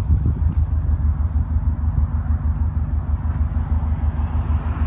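Subaru Impreza STi Type UK's forged flat-four boxer engine idling, a steady, low, unevenly pulsing exhaust note.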